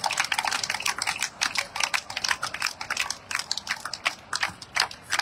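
Audience applauding: many hands clapping in a dense, irregular patter.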